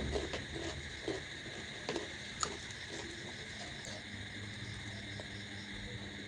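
Person chewing a mouthful of luchi, with a few soft clicks and crunches in the first couple of seconds, then quieter chewing. A steady high-pitched trill runs underneath throughout.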